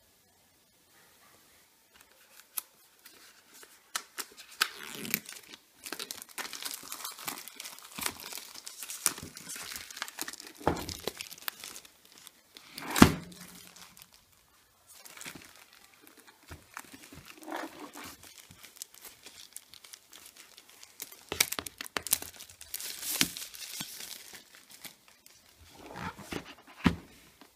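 Clear plastic shrink-wrap on a cardboard product box being slit with a snap-off utility knife and peeled off, crinkling and crackling in fits and starts. One sharp knock about halfway through is the loudest sound.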